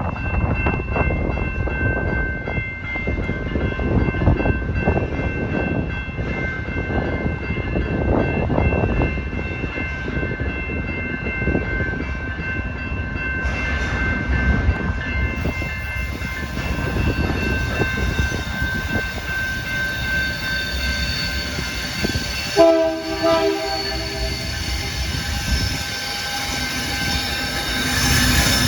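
CPKC train rolling past with a steady rumble and a steady high-pitched wheel squeal. A short locomotive horn blast sounds about 22 seconds in.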